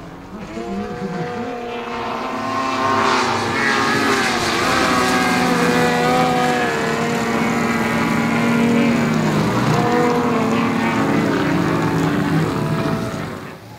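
Propeller engines of several radio-controlled 3D aerobatic model planes flying together, their pitches gliding up and down as they throttle through the manoeuvres. The sound builds over the first few seconds and falls away near the end.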